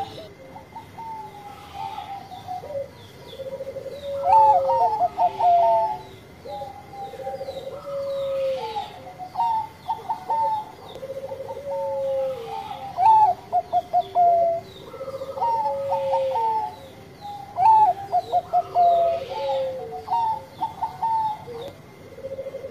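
Caged zebra dove (perkutut, Bangkok song strain) cooing its song over and over: each phrase is a quick run of stuttering notes and a lower drawn-out coo, repeating about every four seconds.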